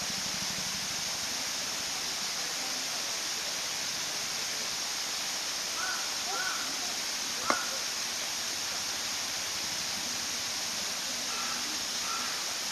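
Steady rush of running water, with a few faint distant voices and one sharp click about seven and a half seconds in.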